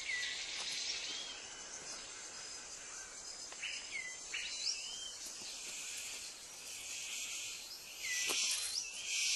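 A bird giving short whistled calls that swoop up and down in pitch, over a steady high hiss, with a louder raspy hiss near the end.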